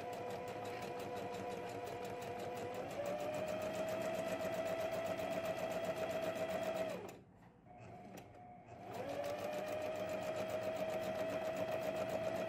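Electric domestic sewing machine stitching a fabric hem: a steady motor whine with rapid needle strokes that speeds up about three seconds in, stops briefly a little past the middle, then starts again and runs back up to speed.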